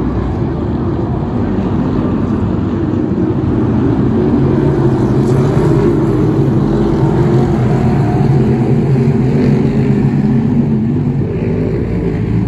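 A pack of BriSCA F1 stock cars' V8 engines running hard as they race round the oval, a dense steady engine noise that swells a little about four seconds in.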